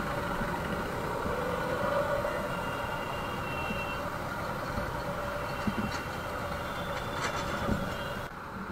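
Busy street traffic at a junction: the steady mixed hum of motorcycle and scooter engines idling and running with road noise, with a faint short beeping tone about three and a half seconds in.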